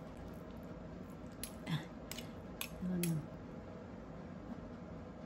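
Metal chopsticks and a spoon clinking and scraping against a cast-iron skillet as noodles are lifted and mixed: a few sharp clicks in the first half. A short low hum about three seconds in is the loudest sound.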